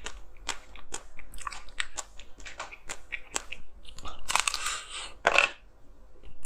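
Hard frozen ice being bitten and chewed: a run of short, crisp crunches, with a longer, denser crackling crunch about four seconds in.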